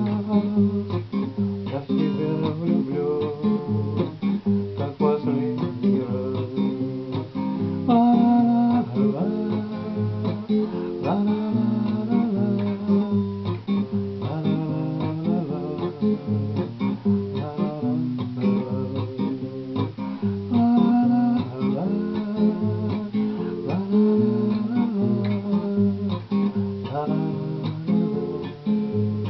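Acoustic guitar playing the song's accompaniment, strummed and picked chords without a break.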